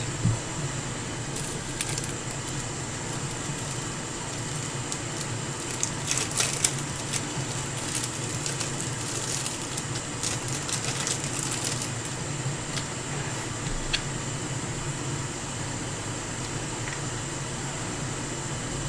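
Faint crackling and small clicks of a soldering iron and desoldering wick being worked over a charging port's solder pads, scattered through the first twelve seconds or so, over a steady fan-like hum.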